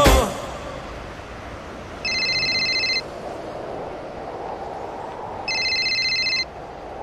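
A mobile phone ringing with two electronic trilling rings, each about a second long: one about two seconds in and another about five and a half seconds in. A faint hiss lies underneath, and the music cuts off right at the start.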